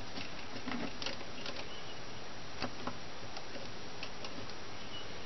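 Faint, irregular clicks and taps of hands working small parts around a small lathe's bed and carriage, over a steady hiss.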